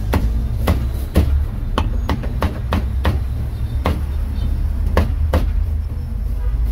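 A cleaver chopping roast meat on a wooden block: a dozen or so sharp, irregular chops, about two a second, over a steady low rumble.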